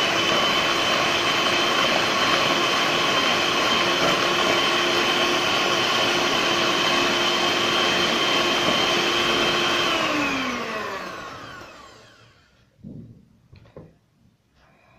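Electric hand mixer running steadily at one speed, its beaters whisking eggs and sugar in a stainless steel bowl. About ten seconds in it is switched off and its whine falls in pitch as the motor winds down, followed by a few faint knocks.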